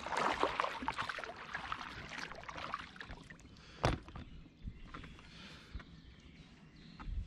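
An oar splashing in the water beside an inflatable boat. There is one sharp knock about four seconds in, then only faint splashes and small clicks.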